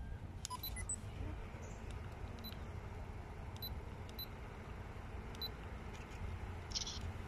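Steady low rumble of wind buffeting the microphone, with a few faint, short high-pitched chirps scattered through it.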